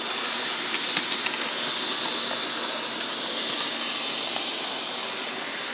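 Bachmann 'The General' HO-scale 4-4-0 model locomotive running at speed on its track, its three-pole motor giving a steady high whine over the rolling noise of the wheels on the rails, with a few sharp clicks in the first second or so.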